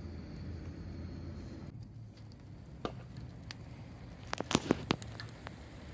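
Food cooking on a camp grill: faint sizzling with a few sharp clicks and pops, the loudest cluster about four and a half seconds in.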